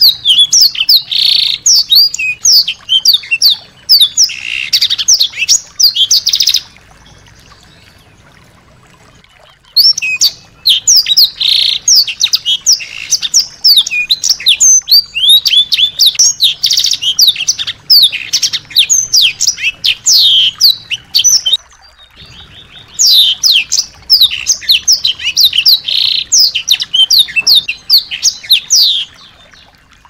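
A small songbird singing loud, long bouts of rapid, high chirps and trills. It pauses for a few seconds about a quarter of the way in and briefly about two-thirds through.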